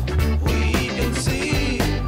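Background music: a song with a steady drum beat and a heavy bass line.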